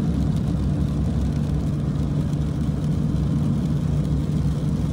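Steady road noise inside a moving car on a wet road: engine and tyre noise with a constant low drone.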